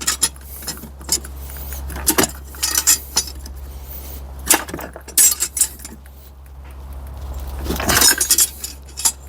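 Steel tools clinking and scraping on metal in irregular sharp clicks as the heated fifth gear of the gearbox is levered off its shaft, with more clatter near the end, over a steady low hum.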